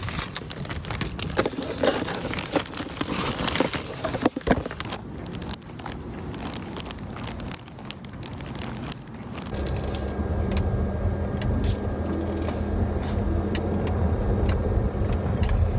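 Plastic mailer bag crinkling and rustling as it is handled, with many small clicks for the first few seconds. From about ten seconds in, the steady low hum of a car's engine and road noise is heard inside the cabin.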